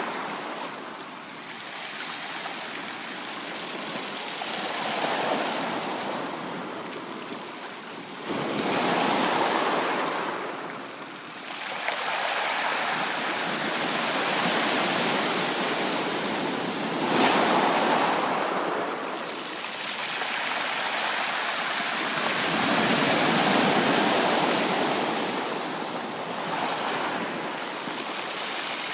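Sea waves breaking and washing up the beach, the surf swelling and falling back every few seconds, with the biggest surge about two-thirds of the way through.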